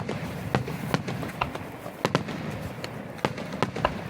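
Aerial fireworks bursting, about ten sharp bangs at irregular intervals, some in quick pairs.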